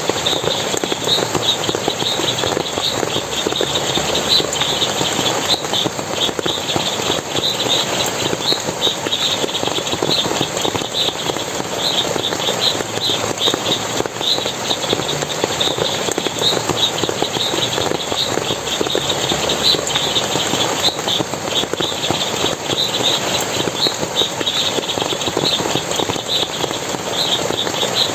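Steady splashing forest water, with many short high chirps repeating about twice a second over it.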